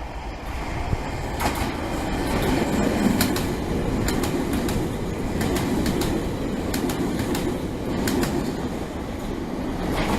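Shintetsu electric train running past with a steady rumble. Its wheels click over rail joints in pairs of quick clicks several times.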